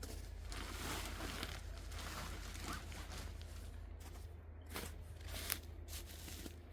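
Rustling and crinkling from something being handled, then a few sharp clicks or snaps in the second half, the loudest about five and a half seconds in.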